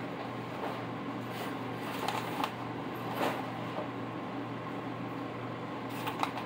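Wooden spatula clacking and scraping against a skillet and bowl while sauced chicken is served over rice: a few short clacks about two seconds in, another a little after three seconds, and one near the end. A steady mechanical hum underneath.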